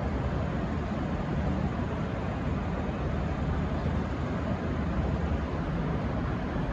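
V/Line VLocity diesel railcar's engines running with a steady low rumble and no horn.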